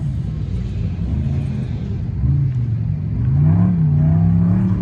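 Off-road race vehicle engine revving, its pitch rising and falling, getting louder about three seconds in.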